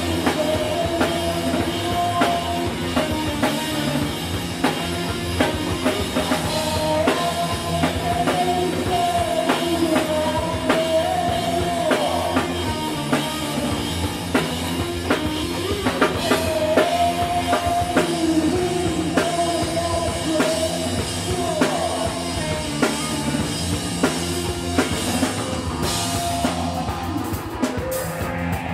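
Rock band playing live on drum kit, electric guitar and bass guitar, with a steady driving drum beat and a melodic line that bends in pitch above it.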